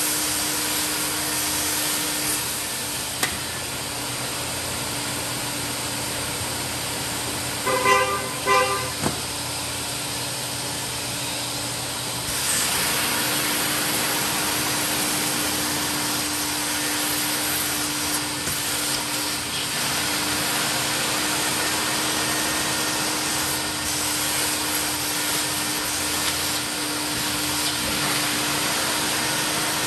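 Mytee Lite 8070 carpet extractor running steadily: the vacuum motor's hum under a hiss of suction, getting a little louder about twelve seconds in. About eight seconds in, a few short pitched beeps sound over it.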